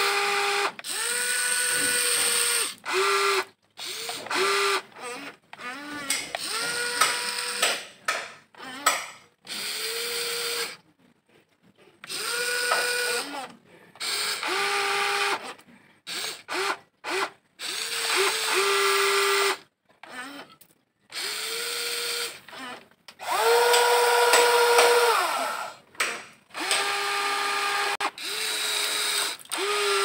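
Electric gear motors of a WLtoys 16800 RC toy excavator whining in short bursts, starting and stopping over and over as the boom, arm and bucket move.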